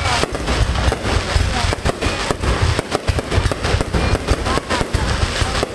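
A fireworks display going off in rapid, overlapping bangs and crackles, many a second with no pause, over a deep rumble.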